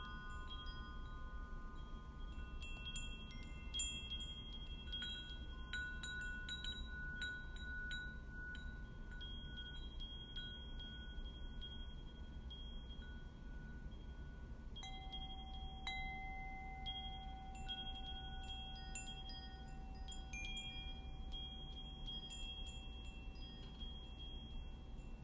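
Chimes ringing slowly and sparsely: scattered struck notes, each hanging on for several seconds and overlapping the next.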